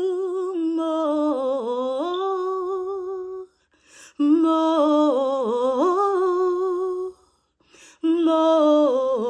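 A woman's solo gospel voice singing unaccompanied: long held notes with vibrato and sliding, melismatic runs, in three phrases broken by two short pauses for breath about three and a half and seven seconds in.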